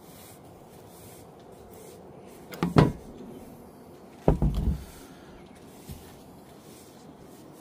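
Two short clattering knocks of a hard plastic EVAP charcoal canister housing being handled and knocked against the work surface while its loose charcoal is emptied out, about a second and a half apart, with a faint tap near the end.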